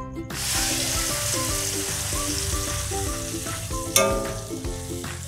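Ground capsicum-and-nut paste hitting hot oil in a kadai: a loud sizzle that starts suddenly as the paste goes in and slowly eases off as it bubbles. A single sharp knock comes about four seconds in.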